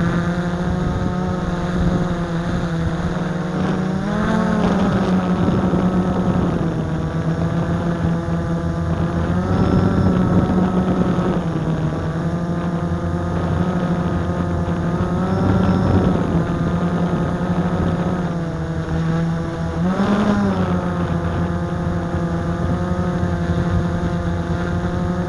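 Blade 350 QX quadcopter's four brushless motors and propellers buzzing steadily while it hovers, heard from the camera mounted on the craft. The pitch rises briefly about four times as the motors speed up.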